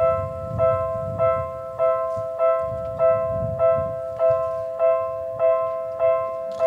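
Japanese railway level-crossing warning bell ringing, a two-tone electronic dinging struck about every 0.6 seconds. A low rumble runs underneath.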